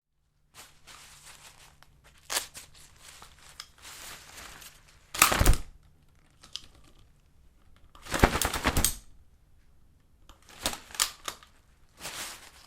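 An umbrella being handled: sharp clicks and rattles from its metal frame and catch mixed with rustling of the canopy fabric, with two louder rushes of movement about five seconds in and again just after eight seconds.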